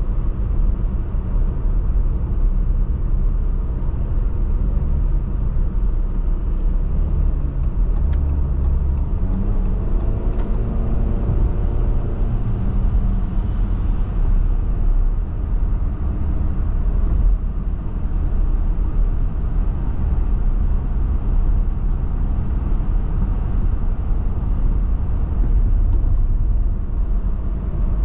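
Car driving on a highway: a steady low rumble of tyre and engine noise. A row of quick light ticks comes about eight seconds in, and an engine tone rises briefly around ten seconds in.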